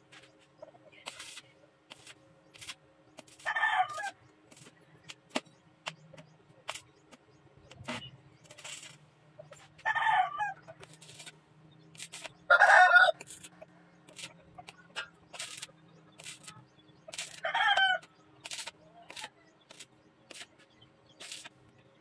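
Roosters crowing four times, the loudest call about halfway through, over a faint steady hum and scattered sharp clicks and crackles.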